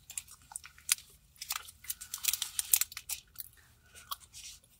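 Chewing and biting soft mochi: a run of sharp mouth clicks and smacks, densest about halfway through.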